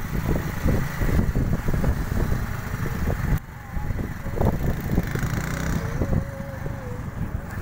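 Road noise from a moving vehicle, with heavy wind buffeting the microphone in irregular gusts, and traffic passing close by.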